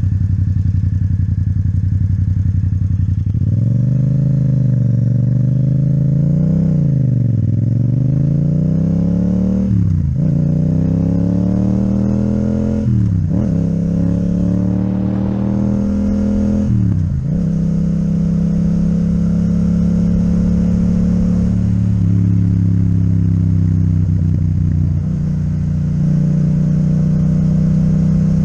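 Yamaha MT-07's parallel-twin engine with an Akrapovic exhaust under way: it runs steadily, revs rise and fall, then it accelerates through three upshifts a few seconds apart, each a sharp drop in revs, and settles into a steady cruise.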